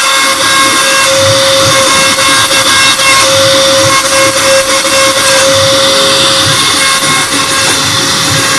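CNC router spindle running and its bit cutting a pattern into an MDF sheet: a steady, loud cutting noise with a constant high whine running through it.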